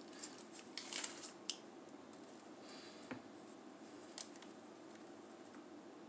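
Faint clicks and light handling noise of a tiny plastic toy egg being turned over in the fingers: a few small clicks in the first second and a half, then single ones about three and four seconds in, over quiet room tone.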